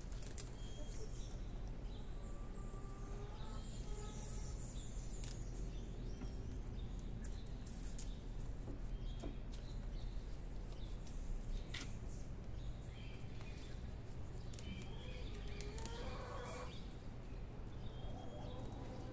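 Small birds chirping intermittently in the background, with a few sharp clicks and soft rustling as a bunch of green onion stalks is pulled apart by hand, over a steady low hum.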